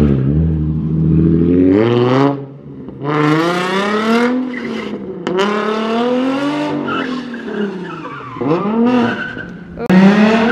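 Nissan 350Z's V6 engine revving up and falling back several times as the car is driven hard, with tyres squealing near the end.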